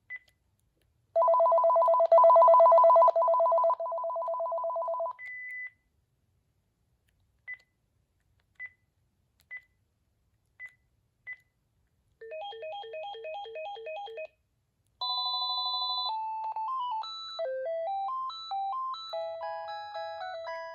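Cordless phone handset previewing its ringers: a short key beep, then a loud warbling two-tone electronic ring for about four seconds, a string of single key beeps as the ringer selection is scrolled, a trilling ring about twelve seconds in, and a melodic ringtone tune near the end.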